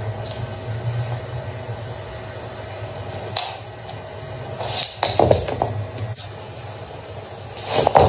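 A cat's paws scuffing and thumping on a laminate floor as it pounces, in short bursts about five seconds in and again near the end, with a sharp click a little past three seconds, over a steady low hum.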